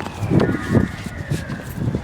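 A siren wailing, its pitch falling slowly, under bumps and rustles close to the microphone. The two loudest bumps come about half a second and just under a second in.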